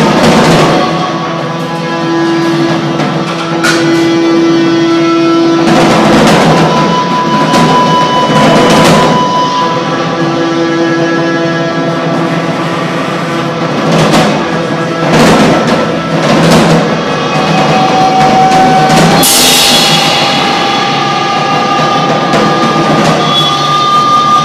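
Loud improvised noise music: drums and metal crashes run through delay and amplifiers over a dense wash, with held steady tones that come and go. A strong crash about nineteen seconds in leaves a long ringing tail.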